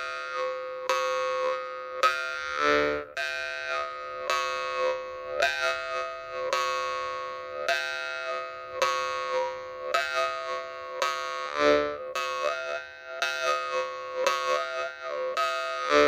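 A Sergei Pyzhov jaw harp (vargan) being played: the metal reed is plucked about twice a second over a steady drone, while the player's mouth shifts the overtones above it into a melody. Its tone is the clear, bell-like ringing that its maker's harps are prized for.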